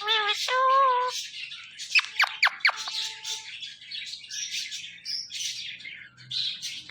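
Indian ringneck parrot vocalizing: two short pitched calls at the start, then a quick run of falling whistles about two seconds in. Continuous high chirping of small birds runs underneath.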